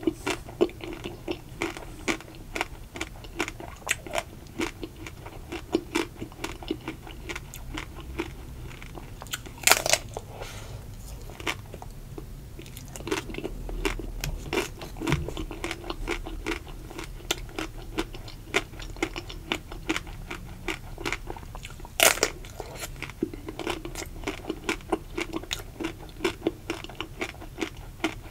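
Ruby chocolate-coated ice cream bars being eaten, close-miked: the frozen chocolate shell crackles and crunches between the teeth, with soft chewing of the ice cream. Two loud crunching bites stand out, about ten seconds in and again about twenty-two seconds in.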